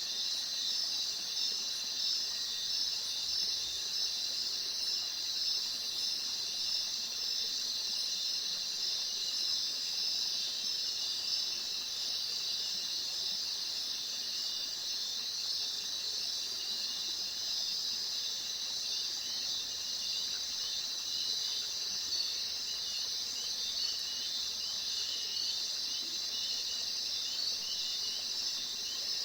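A dense, steady chorus of insects chirping, many shrill calls overlapping without a break.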